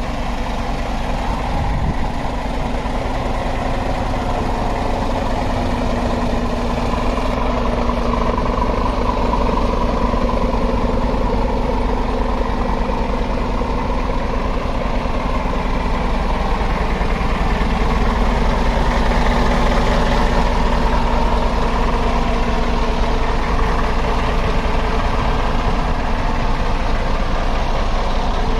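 Scania R 450 truck's 13-litre straight-six diesel idling steadily.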